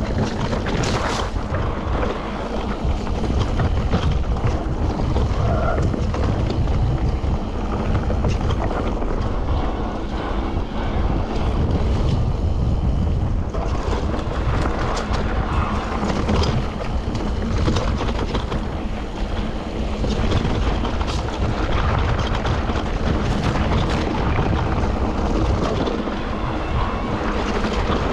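Wind buffeting the microphone: a steady, loud rumble with scattered short clicks and rattles.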